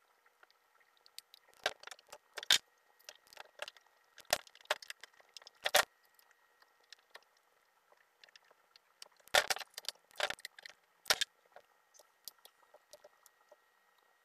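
Handling noise from an AMB router spindle being turned over in the hands and set down on a plywood board: scattered sharp clicks and knocks of its housing, the loudest cluster about nine to eleven seconds in, over a faint steady hum.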